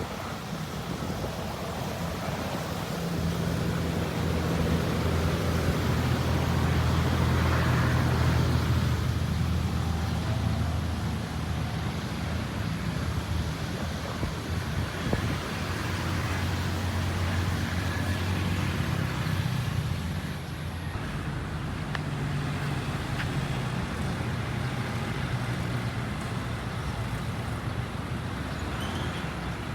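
Motor vehicle engines running in traffic, a low hum that grows louder for several seconds and fades, more than once.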